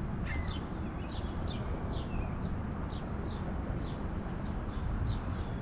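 Small birds chirping: a short, high, down-slurred chirp repeated about twice a second, over a steady low background rumble.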